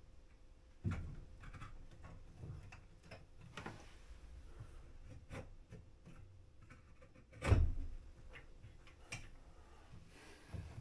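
Scattered light clicks and knocks, with one louder thump about seven and a half seconds in.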